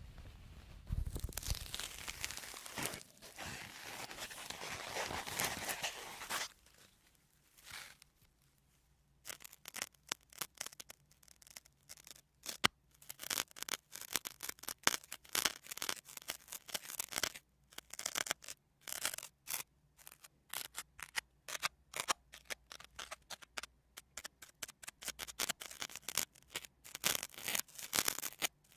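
A sponge being handled: a continuous rubbing hiss for about six seconds, then after a short pause a long run of quick, crisp crackles.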